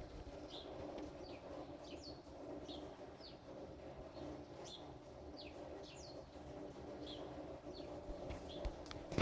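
A small bird calling with short, high, downward-sliding chirps, one or two a second, over a faint steady background hiss. A sharp knock comes right at the end.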